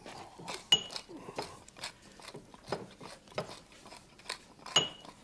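A large hand-turned pepper mill being twisted, grinding with an irregular crunching and clicking. Two short ringing clinks of crockery, about a second in and near the end.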